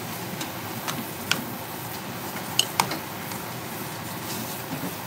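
Metal spoon stirring spaghetti in sauce, clicking against a cooking pot a few times, the loudest two clicks close together a little under three seconds in, over a steady hiss.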